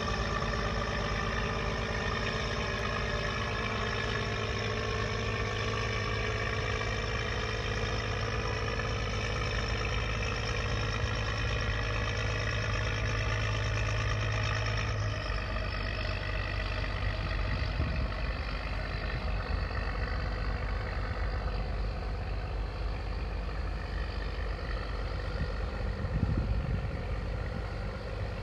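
Heavy diesel boat engine running steadily, its pitch drifting slowly lower. A low hum drops away about halfway through.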